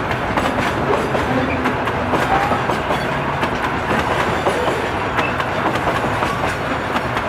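Loaded freight wagons of a train carrying clinker and limestone rolling past, with a steady rumble and the repeated clickety-clack of wheels over rail joints.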